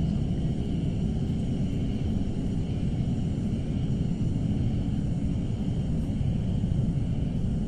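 Steady low rumble with a faint, steady high whine over it, and no distinct knocks or clicks.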